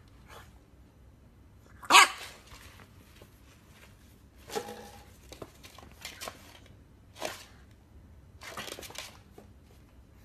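English bulldog puppy barking: about five short barks at uneven gaps, the first, about two seconds in, the loudest.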